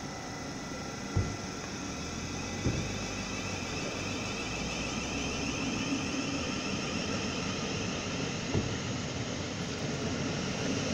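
Electric passenger train pulling out toward the tunnel, a steady rumble and rushing of its wheels and motors that grows slightly louder, with three dull knocks: about a second in, near three seconds and near nine seconds.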